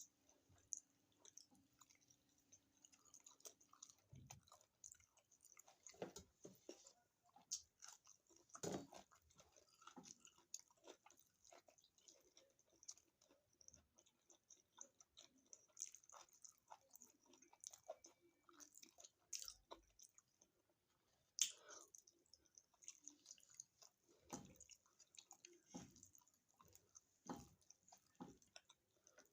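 Faint close-up chewing and eating mouth sounds: soft, irregular wet clicks and smacks, with one sharper click about 21 seconds in.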